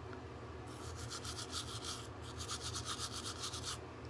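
Manual toothbrush scrubbing teeth in rapid back-and-forth strokes, starting about a second in, with a short break in the middle, and stopping just before the end.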